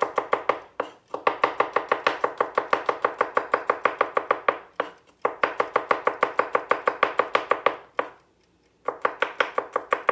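Kitchen knife chopping rapidly on a cutting board, about seven quick strokes a second, in four runs with short pauses about one, five and eight seconds in.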